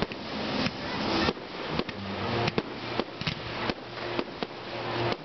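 Fireworks crackling and popping, with many sharp bangs at irregular intervals over a hiss that swells and cuts off again and again.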